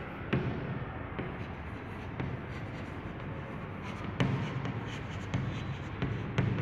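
Chalk writing on a blackboard: a steady scratching of the chalk, with a few sharper taps as strokes begin.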